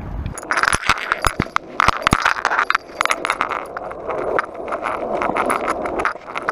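Skateboard clatter: irregular sharp clicks and rattles over a rough rolling hiss from wheels on concrete.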